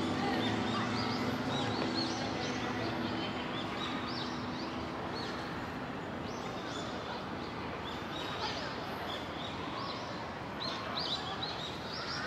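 Outdoor ambience: small birds chirping over and over in short high calls above a steady hiss of background noise, with the chirps louder and thicker near the end.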